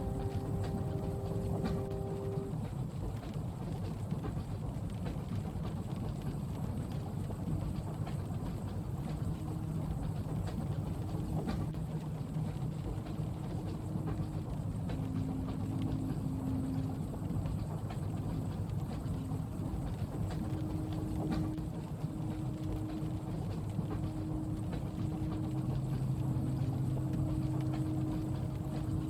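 Steady low rumble of a passenger train carriage in motion, with a few faint hums that come and go and light scattered ticks of rain on the window.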